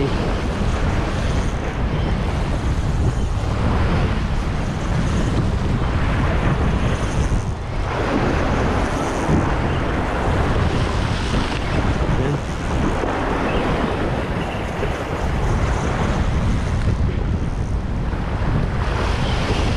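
Wind buffeting the microphone over sea waves: a loud, steady rushing noise that swells and eases every few seconds.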